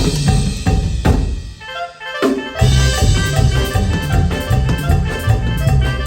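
Live band playing a banda-style instrumental number with drum kit and bass; the music drops out briefly about two seconds in, then the whole band comes back in.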